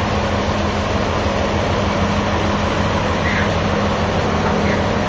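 A machine's engine running steadily with a constant low hum and a noisy wash over it.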